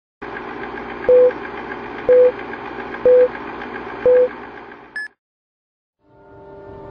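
Film countdown leader sound effect: a projector's steady whirring rattle with fast ticking, and a short beep once a second, four times, then a higher blip as the count ends. After about a second of silence, a low eerie drone of held tones fades in near the end.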